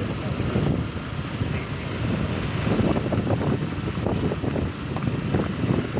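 Road noise from a moving vehicle, with wind buffeting the microphone in a steady, rough rush.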